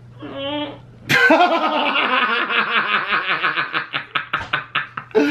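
A man laughing loudly and at length: a fast, rhythmic run of 'ha-ha' pulses starting about a second in, which slows and breaks into separate bursts near the end.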